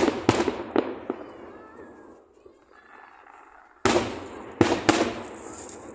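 Aerial fireworks shells bursting overhead: a quick run of three bangs at the start, then three more about four seconds in, each dying away slowly in a rolling echo.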